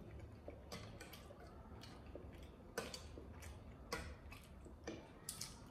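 Faint eating noises: about nine small clicks and ticks, scattered irregularly, from spoons and chewing mouths.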